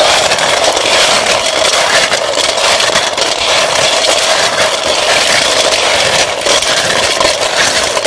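Pond snails being rubbed and churned by hand with salt in a stainless steel bowl: a continuous, loud grinding rattle of shells clattering against each other and the metal, as the salt scours dirt off the shells.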